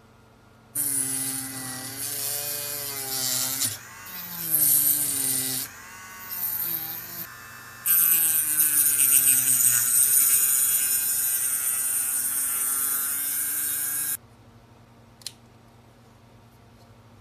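Small handheld rotary tool with a thin cut-off disc cutting into a plastic capsule-toy shell: a motor whine whose pitch wavers as the load changes, with the hiss of cutting, easing off a few times before stopping suddenly. A single click follows about a second later.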